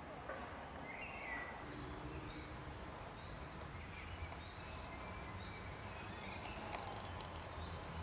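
Faint outdoor ambience with birds chirping: short high calls scattered every second or so over a soft, steady hiss.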